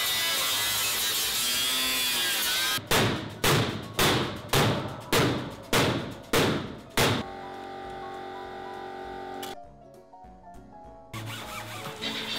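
Angle grinder cutting through the sheet-metal control panel of an old oven, a steady loud grinding that stops about three seconds in. Then a run of about eight evenly spaced thunks, roughly two a second, followed by background music.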